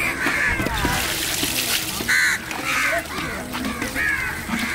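Crows cawing repeatedly in short, harsh calls, several in a few seconds, over a busy background.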